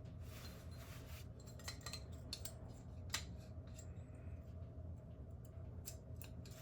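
Faint clicks and light scrapes of small metal fixture parts being handled and fitted together, scattered irregularly over a steady low hum.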